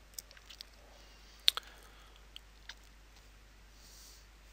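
A few faint, scattered clicks, one clearly louder about one and a half seconds in, over quiet room tone, with a soft hiss shortly before the end.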